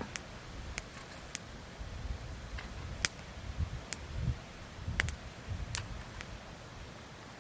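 Wood fire crackling: scattered sharp pops and snaps at irregular intervals, the loudest about three seconds in and again around five seconds, over a low uneven rumble.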